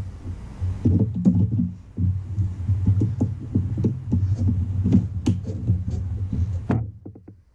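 Hands wrenching a rubber heater hose loose from its fitting: irregular knocks, clicks and rubbing, a few a second, over a steady low hum, dying away near the end.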